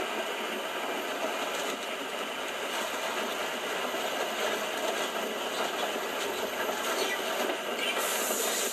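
Cat D11T bulldozer's diesel engine and steel tracks running steadily as it crawls over and crushes a pickup truck. The sound is thin, with no bass, as if played through a small speaker and re-recorded.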